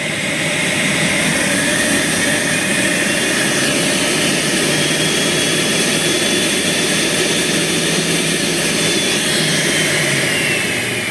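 Turbocharger rotor spinning at about 20,000 rpm on a high-speed dynamic balancing machine: a loud, steady jet-like rush of air with a thin whine. The whine slowly climbs in pitch through the middle and drops away near the end.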